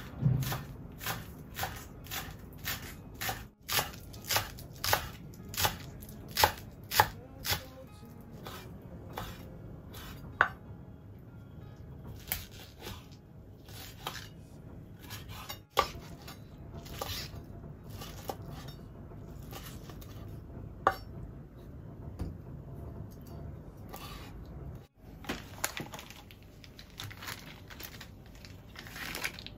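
Kitchen knife chopping green onions and wood ear mushrooms on a wooden cutting board: steady knocks about two a second for the first several seconds, then a few scattered cuts. Near the end, a faint crinkly rustle of plastic seasoning packets.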